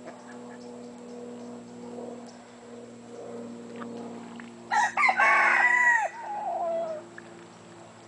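A rooster crows once, loudly, about five seconds in: a cock-a-doodle-doo of about two seconds that ends on a falling note.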